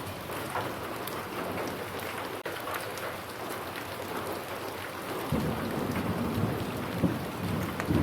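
Steady rain falling, with a low rumble of thunder that comes in about five seconds in and grows louder.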